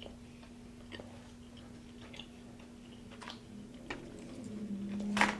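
Close-miked mouth sounds of a person chewing food, with soft wet clicks about once a second. Near the end a closed-mouth hum rises in loudness and ends in one loud lip smack.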